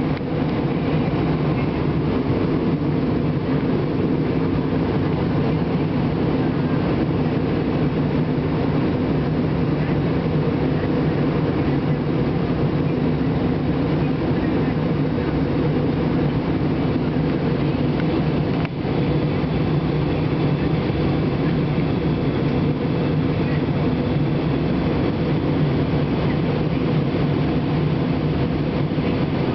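Steady drone of an airliner cabin in flight: engine and airflow noise, heavy in the low end and unchanging.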